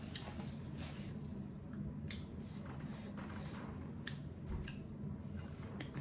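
A paper napkin being folded and crumpled in the hands: scattered short crinkles and soft clicks over a steady low hum.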